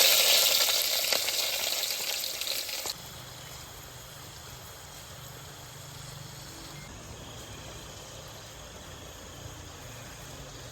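Food sizzling loudly in a hot pan, the hiss dying down over about three seconds, then giving way abruptly to a much quieter steady low hum.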